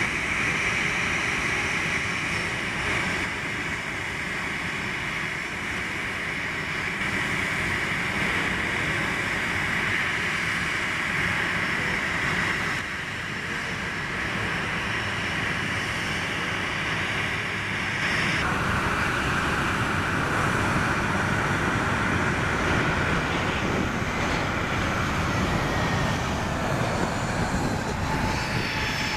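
Jet airliner engines running close by as a Boeing 737 taxis past: a steady high whine over a rushing noise, the whine shifting to a lower pitch about 18 seconds in.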